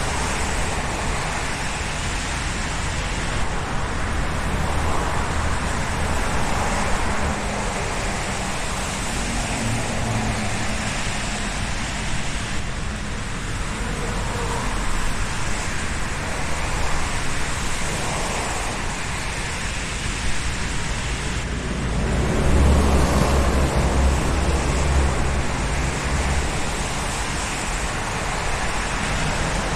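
Road traffic noise: a steady wash of cars passing, with low engine and tyre rumble. A heavier vehicle swells louder about two-thirds of the way through.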